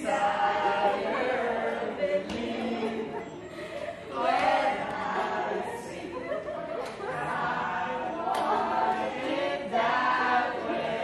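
A group of people's voices raised together, several held, wavering pitched voices at once, like a chorus.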